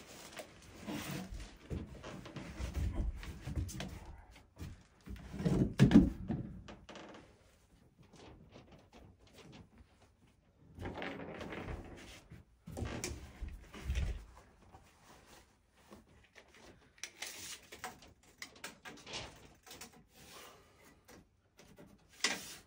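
Handling noises of someone working on a plywood floor: irregular knocks, thumps and rustling, with the loudest thump about six seconds in and lighter scattered clicks later.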